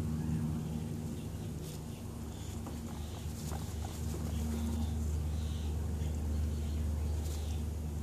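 Guinea pigs giving a few short, soft high squeaks over a steady low hum.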